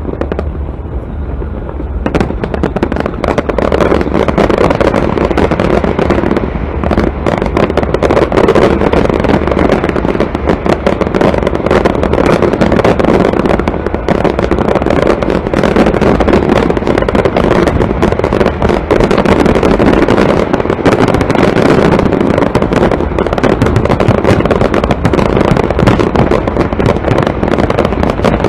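Fireworks bursting overhead in a dense, continuous run of bangs and crackles, with a steady low rumble underneath.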